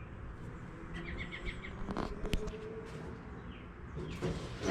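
Quiet background with faint bird chirps: a quick run of short high notes about a second in. A single sharp click follows a little after two seconds.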